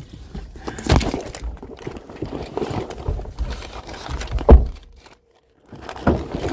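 Handling noise from the recording phone being moved around: rubbing and rustling with knocks about a second in and a louder one about four and a half seconds in.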